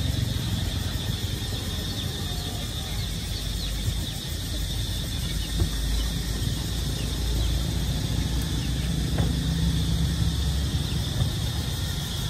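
Outdoor street ambience: a steady low rumble of passing traffic that grows a little louder for a few seconds from about six seconds in, over a constant high, thin hum.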